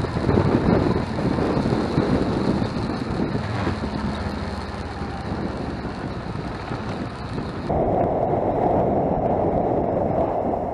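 Wind buffeting the microphone over a Kawasaki Versys 650's parallel-twin engine while riding. About eight seconds in the sound changes abruptly to a duller, steadier run of engine and wind.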